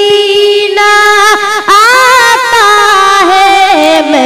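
A young boy singing a naat into a microphone, holding long drawn-out notes with ornamented, wavering glides and stepping down in pitch near the end.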